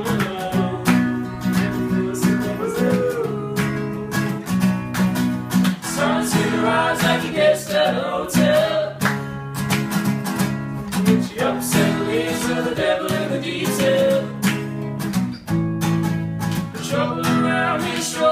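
Acoustic guitar strummed in a steady rhythm, playing the chords of a song's instrumental passage between verses.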